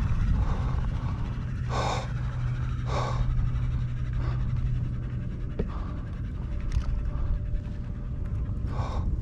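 A man breathing hard, several heavy breaths a second or more apart, from the effort of fighting a big fish on rod and reel. A low steady hum runs underneath for the first half and stops about five and a half seconds in.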